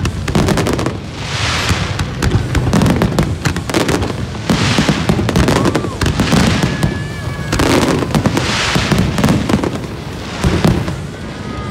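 Fireworks display: aerial shells bursting overhead over and over, a loud burst about every one to two seconds, with dense crackling between them.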